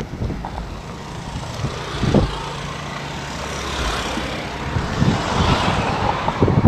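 Motor scooters passing close by on the road, their engine and tyre noise swelling and fading over a few seconds, with a low rumble underneath and a thump about two seconds in.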